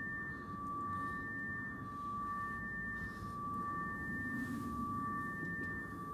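Film sound-design drone: a low rumble under two held ringing tones, the higher one switching on and off about every second and a half.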